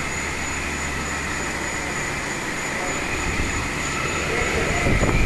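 Steady running noise of machine-shop machinery, with a thin high whine over it and a low rumble that grows louder near the end.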